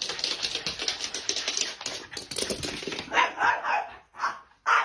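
A dog, with a fast run of sharp clicks for about the first three seconds, then a few short, louder calls near the end.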